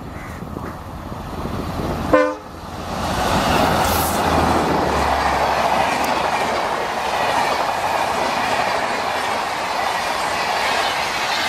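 An EMD WDP4 diesel locomotive on an express passenger train gives one short horn blast about two seconds in. It then passes at speed with a deep engine rumble, followed by the steady rush and rattle of the coaches' wheels on the rails.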